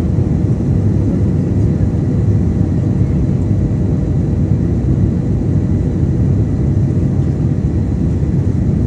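Jet airliner cabin noise while climbing after takeoff: a steady low rumble of the engines and rushing air, with a faint steady whine above it.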